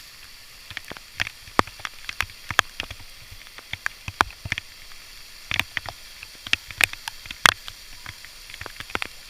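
Steady hiss of waterfall water with irregular sharp crackles and taps, a few every second, the loudest about seven and a half seconds in.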